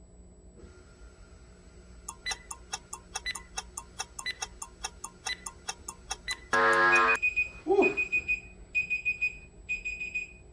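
Workout interval-timer sound: rapid clock-like ticking over the last seconds of the countdown, then a loud buzzer about six and a half seconds in as the timer runs out. Three quick runs of high-pitched alarm beeps follow, marking the end of the hold.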